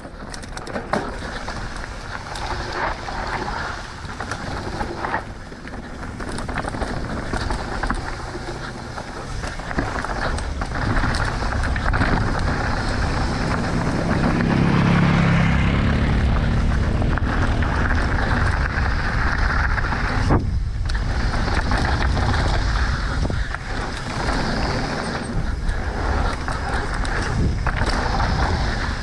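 Mountain bike running fast down a dirt flow trail: wind rushing over the camera microphone and tyres rumbling on dirt, with scattered short knocks and clatters from the bike.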